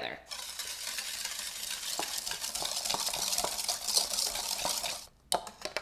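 Wire whisk beating egg yolks with sugar in a mixing bowl: a fast, steady scraping and clicking of the wires against the bowl, stopping about five seconds in.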